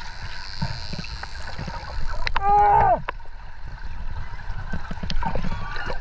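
Underwater recording: a steady low rumble of water with bubbling and hiss, and a short pitched cry that falls in pitch about two and a half seconds in, with fainter falling calls near the end.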